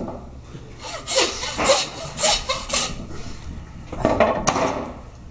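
Butcher's hand bone saw rasping back and forth through lamb bone: four quick strokes about two a second, then one longer stroke about four seconds in.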